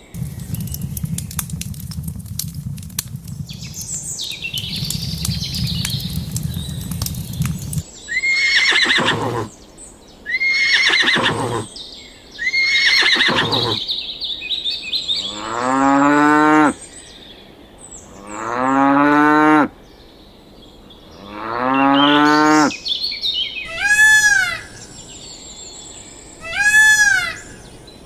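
A run of farm animal calls, among them cattle mooing. The first few seconds are a noisy low rumble with clicks. About eight seconds in come three falling calls, then three long low moos, then several short high arched calls near the end.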